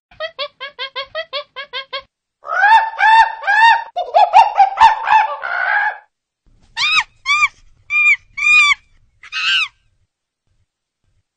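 A bird calling: a quick run of about nine short notes, then a louder jumble of overlapping calls, then five separate higher calls about half a second apart.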